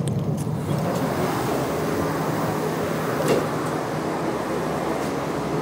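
Steady drone of a NefAZ-5299 city bus's engine and running gear, heard from its doorway and passenger cabin, with one short knock about three seconds in.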